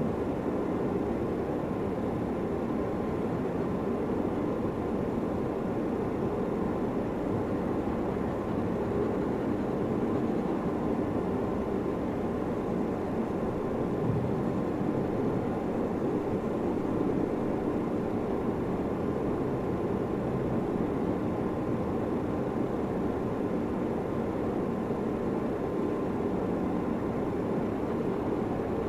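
Steady low rumbling background noise with a faint steady tone above it, unchanging, with no separate strokes or knocks.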